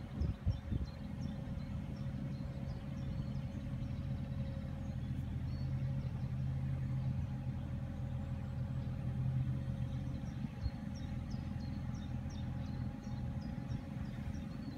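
Mini excavator's diesel engine running steadily, its low hum swelling for several seconds in the middle.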